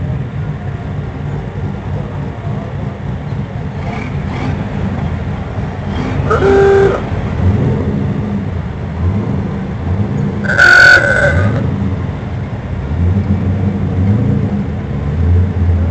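A motor vehicle running steadily with a low rumble. Two brief higher, pitched tones cut in, one about six seconds in and a louder one about eleven seconds in.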